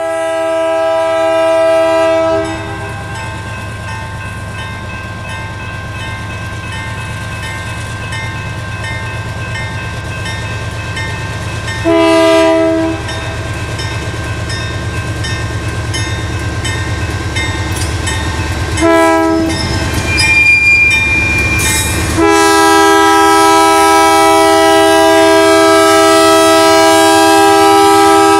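Lead GE AC44CW diesel locomotive of a freight train sounding its horn in the long, long, short, long pattern used for a grade crossing, the last blast held for about six seconds as the locomotive draws level. Under the horn the diesel engines rumble steadily, growing louder as the train approaches.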